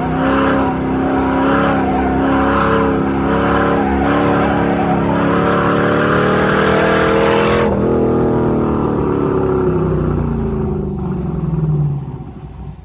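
1962 Chevrolet Corvette's 327 V8 pulling under throttle, its pitch climbing slowly, then the throttle is lifted abruptly about eight seconds in and the revs fall away as the car coasts down. The sound fades out at the very end.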